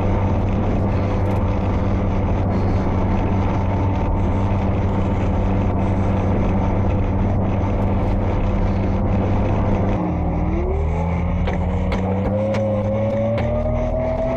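An M113 armoured personnel carrier running under way: a loud, steady engine and track drone. About ten seconds in the note drops, then climbs steadily in pitch as the engine revs up.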